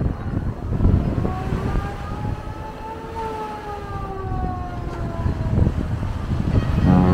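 Wind buffeting the microphone over small waves washing onto a sandy beach, with a faint siren-like tone that rises for about two seconds and then slowly falls away. Music comes in just before the end.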